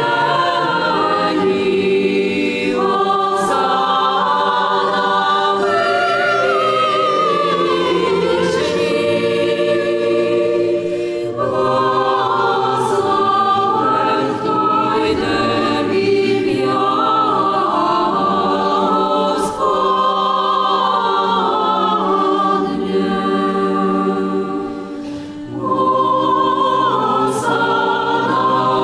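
Church choir singing sacred music, several voice parts sounding together, with a short break between phrases near the end.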